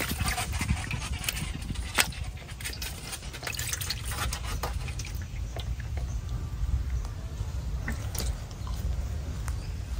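Scattered light drips, splashes and taps of water, over a steady low rumble.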